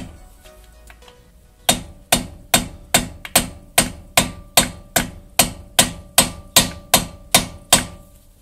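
Hammer striking a screwdriver held against the new driveshaft hub bolt, staking its collar into the dent so it cannot come back out. After a short pause near the start comes a steady run of about sixteen sharp metal strikes, some two and a half a second, each with a brief ring.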